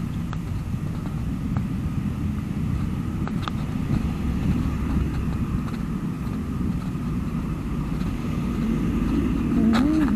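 Street traffic: cars driving past close by, a steady low rumble of engines and tyres on the road.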